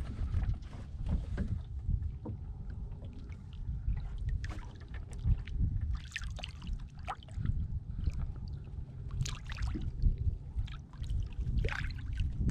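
Water splashing and sloshing against the side of a small fishing skiff as a redfish is held in the water to revive it, in scattered short splashes and knocks over a low wind rumble on the microphone.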